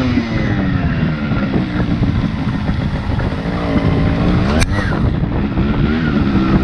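Yamaha RX100's two-stroke single-cylinder engine running under way, its pitch falling, holding and then climbing as the throttle is opened and closed. A single sharp knock about four and a half seconds in, with the engine dropping back after it.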